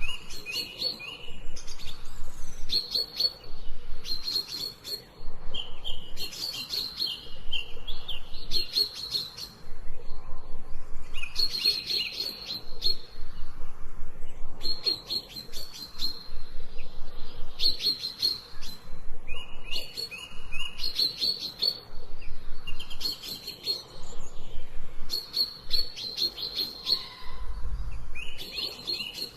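Songbird singing phrases of rapid, high chirps that jump between two pitches, a phrase every few seconds.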